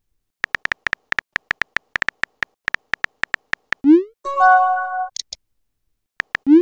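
Texting-app sound effects: a run of about twenty quick keyboard-tap clicks, then a short rising swoop and an electronic chime of a few steady tones as an incoming message pops up. A few more taps and the start of another swoop come near the end.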